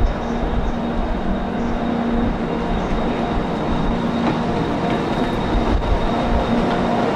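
A train running steadily past: a continuous rumble with a steady low hum and a faint high whine.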